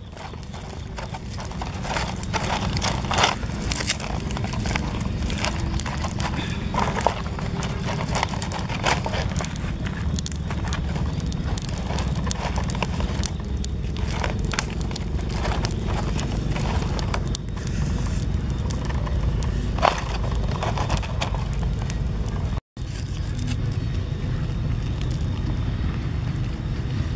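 Low rumbling wind noise on the microphone, with scattered clicks and rustles of hands working lemongrass stalks into a raw chicken.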